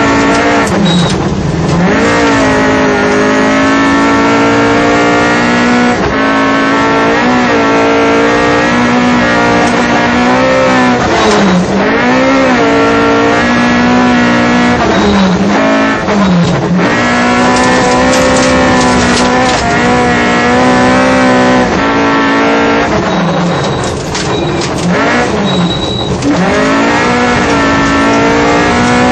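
Rally car's engine at high revs on a special stage, heard from inside the car. The engine note holds steady for long stretches and drops and climbs again several times, around 2, 11, 15, 16, 24 and 26 seconds in, as the driver lifts off or changes gear.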